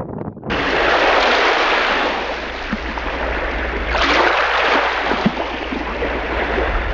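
Steady rushing noise of sea water, cutting in suddenly about half a second in and swelling again around four seconds in.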